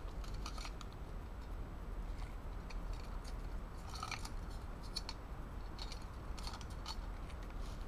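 Irregular rustling and small clicks of someone rummaging through a backpack and handling its contents, over a steady low rumble.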